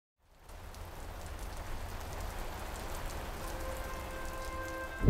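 Steady rain falling on a surface, with scattered drop ticks and a low rumble underneath; it fades in from silence at the start.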